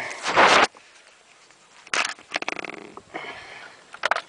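A loud, sharp breath through the nose close to the microphone, then a few faint clicks and rattling handling noises.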